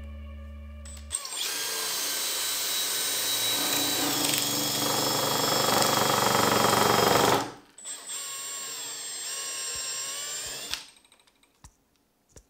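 Cordless drill spinning a thin wooden stick chucked in it against a clamped wooden block, shaving the stick down. It runs in two bursts: a loud one of about six seconds, its whine dipping under load partway through, then a quieter one of about three seconds. It stops near the end, followed by a few small clicks. Background music plays for the first second.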